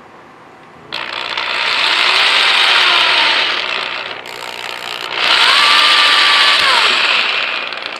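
Cordless drill boring two small holes through a PVC plastic plug in two runs, from about a second in to about four seconds and again from about five to seven and a half seconds. The bit grinds through the plastic, and the motor's whine rises, holds and falls with the trigger in the second run.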